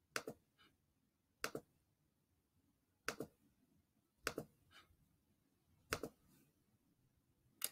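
Computer mouse clicking: six quick double clicks spaced about a second and a half apart, with near silence between them.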